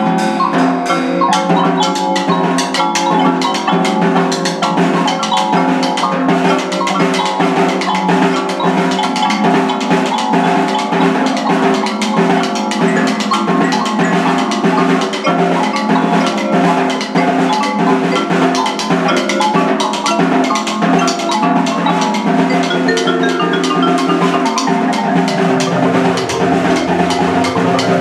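Hand-played snare drum struck in a fast, steady rhythm over an electronic keyboard's sampled backing of layered held notes. Near the end a low note slides down and back up.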